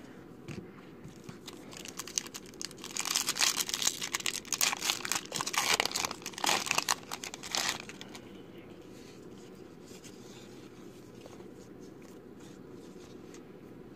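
Foil trading-card pack wrapper crinkling as it is torn open and pulled apart by hand, a dense run of rustling from about a second in, loudest in the middle and stopping around eight seconds in.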